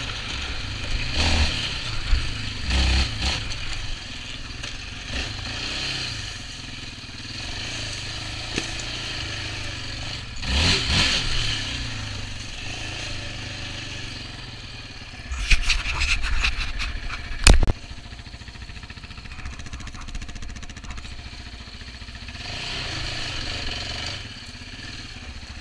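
Yamaha Raptor 700R quad being ridden at speed over a dirt track, its single-cylinder engine running under heavy wind noise on the helmet microphone. About two-thirds of the way through comes a burst of rattling knocks over rough ground, ending in one sharp bang.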